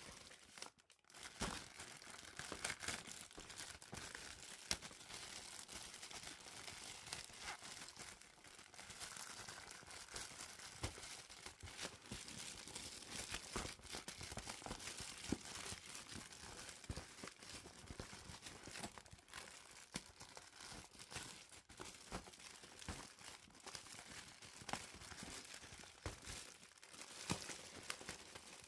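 Packaging of a merch box being unwrapped by hand: continuous crinkling and tearing, dense with small rustles and clicks.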